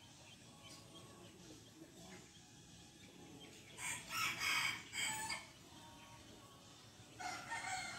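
A rooster crows once, about four seconds in, with a short break near its end; a shorter call with falling pitch follows near the end.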